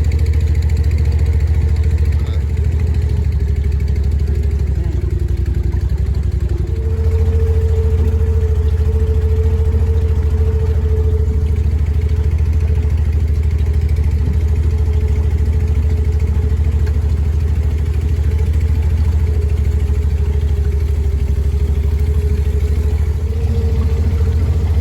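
Engine running steadily with a heavy low rumble; its pitch drops a little about five seconds in and climbs back about seven seconds in.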